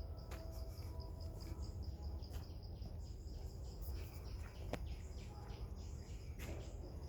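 Insects chirping: a steady, high-pitched trill that pulses rapidly without a break, over a constant low rumble, with one sharp click a little before the 5-second mark.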